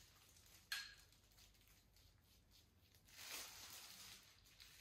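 Near silence: room tone, broken by one brief click just under a second in and a soft rustling hiss about three seconds in.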